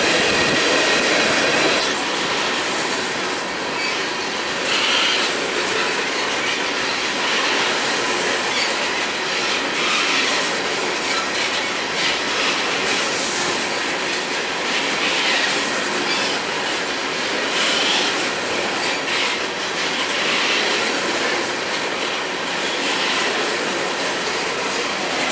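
Empty tank cars of a freight train rolling past: steady wheel-on-rail noise with clickety-clack, swelling about every two to three seconds.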